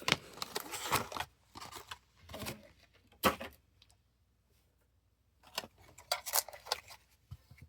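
A metal collector tin and its packaging being handled and opened: clinks, rattles and rustles. A single sharp knock comes about three seconds in, then a short pause, then more clattering and clicking.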